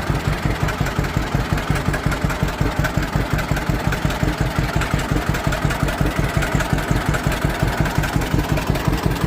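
1948 John Deere Model A's two-cylinder engine idling with a steady, even putt-putt beat.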